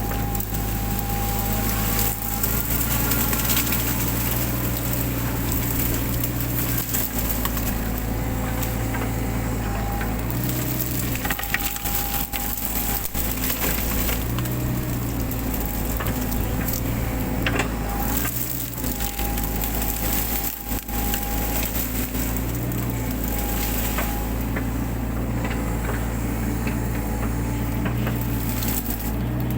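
Mini excavator's engine running steadily under load, with a hydraulic whine that comes and goes as the arm works. Brush and branches crack and splinter repeatedly as they are crushed and torn out.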